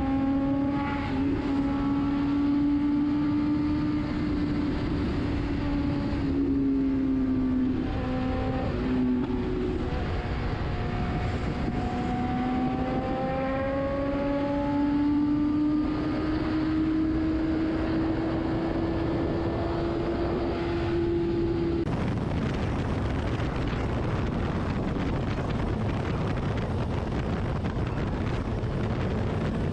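BMW S1000RR inline-four engine pulling at highway speed, its note rising steadily with two short drops in pitch at upshifts. About two-thirds of the way in, the engine note gives way to a steady rush of wind on the microphone.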